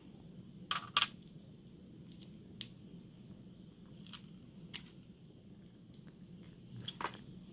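Sharp little metal clicks from a Brinks padlock being turned and handled: two close together about a second in, a few single ones after, and another pair near the end.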